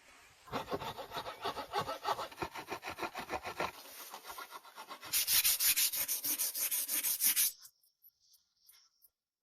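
A hand tool working wood in quick, even back-and-forth strokes. The strokes get louder and brighter about five seconds in, then stop abruptly a couple of seconds later, leaving a few faint ticks.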